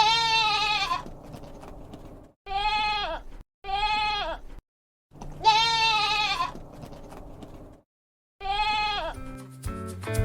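Goat bleating five times with short gaps between, each bleat dropping in pitch at its end. Music comes in near the end.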